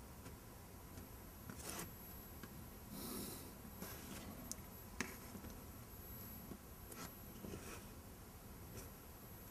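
Faint pencil strokes on paper as lines are drawn along a plastic set square: a few short scratchy passes, with one sharp tap about five seconds in.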